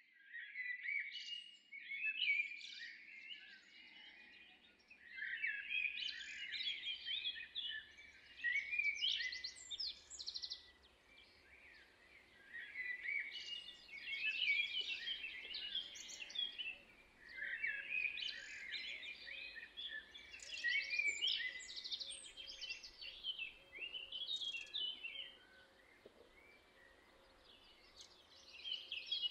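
Songbirds singing: busy warbling, chirping phrases a few seconds long, coming again and again with short pauses between, over a faint low background hum.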